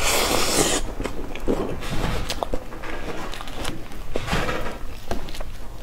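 Close-miked mouth sounds of eating soft mousse cake off a spoon: a loud wet burst in the first second, then softer squishy chewing with a few light clicks.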